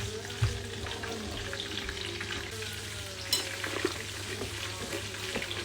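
Battered cod fillet pieces frying in oil: a steady sizzle with scattered crackles and pops, and one sharp click a little past the middle.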